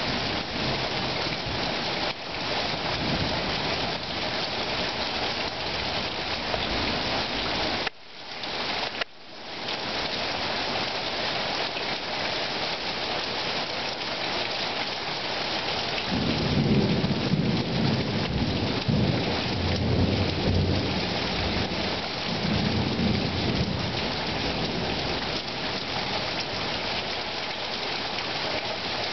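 Heavy thunderstorm downpour: steady rain pounding the street and surfaces. A low rolling rumble of thunder swells about halfway through and lasts several seconds. The sound drops out briefly twice, around a third of the way in.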